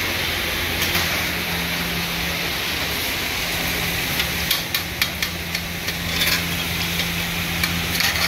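Green bell pepper pieces deep-frying in a karahi of hot oil, a steady sizzle, with a perforated skimmer clicking and scraping against the pan several times in the second half. A steady low hum runs underneath.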